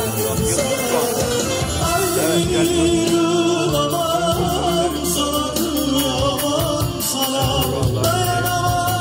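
A man singing live into a microphone through a PA, the melody wavering and ornamented, over amplified band accompaniment with a steady beat.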